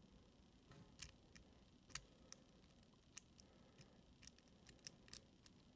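Light, irregular metallic clicks from a Mul-T-Lock Interactive+ lock cylinder as the key is turned and the plug lined up for removing the core. The loudest click comes about two seconds in.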